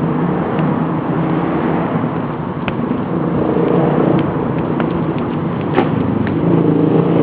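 Dirt bike engines running and revving, their note rising and falling a little.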